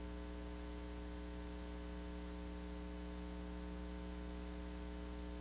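Steady electrical mains hum with a faint hiss, a low buzz carrying a ladder of even overtones, on the audio track of a mid-1990s taped TV broadcast.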